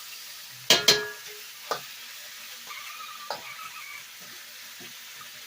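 Mushrooms and onion sizzling steadily in a hot pan while being stir-fried, with a metal utensil knocking against the pan twice just under a second in, the loudest sounds, and softer knocks a couple more times.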